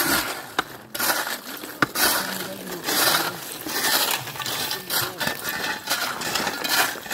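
Pickaxe blows striking and breaking ice, with chunks of ice clinking and crunching, then a steel shovel scraping and scooping through the broken ice. A few sharp strikes come in the first two seconds, followed by longer scraping and crunching.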